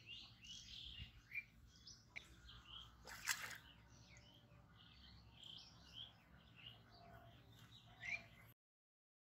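Small birds chirping and twittering repeatedly, with one brief sharp noise about three seconds in. The sound cuts out completely near the end.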